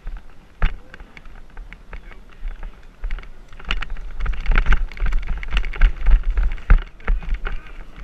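Lacrosse play heard on a player-worn GoPro: rapid clacks and knocks of sticks and gear over wind rumble on the microphone, with players shouting from about halfway.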